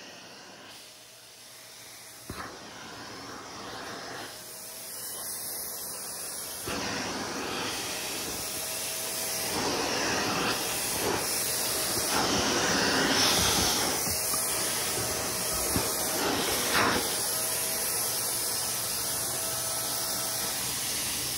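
A vacuum cleaner running with its hose nozzle worked over a cat's fur: a steady rushing hiss that grows louder over the first half, with a faint whine that comes and goes and a couple of short knocks.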